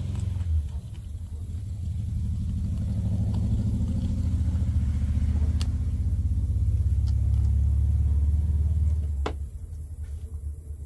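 Running water rinsing a gutted sockeye salmon: a steady low rush that cuts off with a click about nine seconds in.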